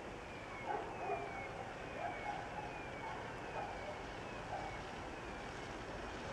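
Level crossing warning signal sounding a short falling electronic tone, repeating a little faster than once a second, with a few louder short irregular sounds mixed in.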